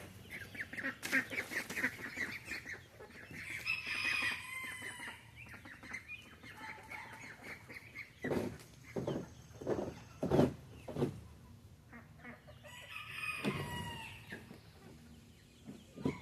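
Chickens clucking, with a rooster crowing about four seconds in and again near the end. Several sharp knocks sound in the middle.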